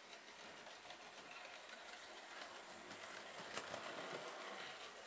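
Bachmann OO-gauge Fairburn 2-6-4 tank locomotive model running on the track, its motor and wheels giving a faint, steady whirr that swells as it passes close by about three and a half seconds in, with a few light clicks.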